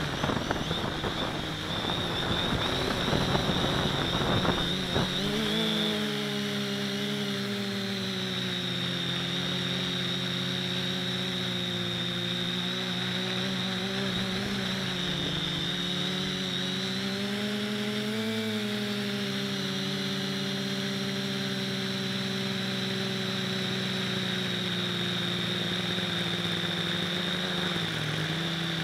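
Neewer FPV quadcopter's electric motors and propellers buzzing, heard through its onboard camera. The sound is a noisy rush for the first five seconds or so, then settles into a steady pitched hum with a high whine that rises and falls slightly as the throttle changes.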